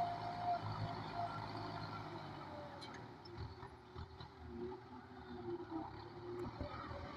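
Kubota M9540 tractor's four-cylinder diesel engine running steadily at moderate level, its note wavering a little past the middle.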